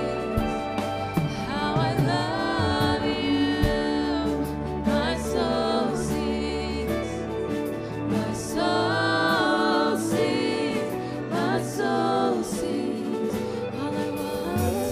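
Gospel worship song: singing over instrumental backing, with held bass notes and light cymbal strokes.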